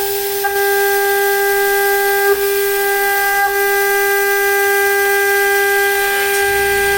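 The CNC router's ATC spindle spinning at high speed with a steady, high-pitched whine, plus a few faint ticks. A low hum joins just before the end.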